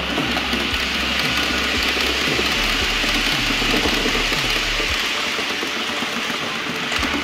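H0-scale model train running along the track: a steady rushing noise of its wheels on the rails and its motor.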